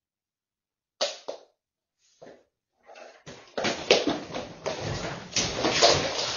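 White plastic baby playpen being knocked over, its panels clattering and crashing to the floor in a loud, dense run of knocks and rattles lasting about three seconds, after a couple of short knocks earlier.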